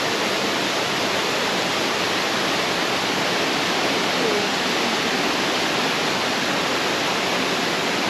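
Steady rush of a two-tiered waterfall, water pouring and splashing without a break.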